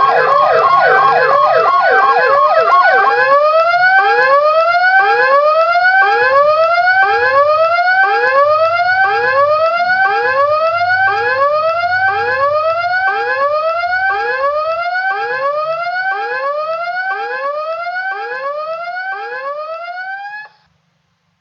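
Electronic warning siren, the alarm of a high-wind early-warning device, wailing in repeated rising sweeps. The sweeps are faster and overlapping for the first three seconds, then settle to about three every two seconds. It fades slowly and cuts off suddenly near the end.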